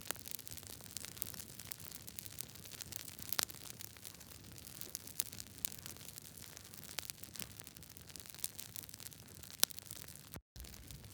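Wood fire crackling: irregular sharp pops and snaps over a steady low hiss, with two louder pops, one a few seconds in and one near the end. The sound cuts out for a split second near the end.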